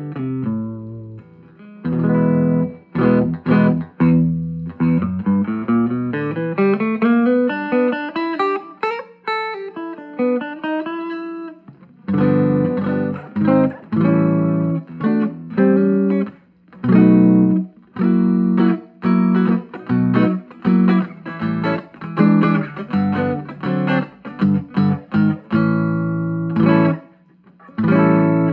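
Electric guitar with D'Armond goldfoil pickups played through a vintage 5-watt tube amplifier, salvaged from a film projector, into a 10-inch Eminence Cannabis Rex speaker in a barnwood cabinet. Rising and falling single-note runs over a held low note give way, about midway, to chords broken by short pauses.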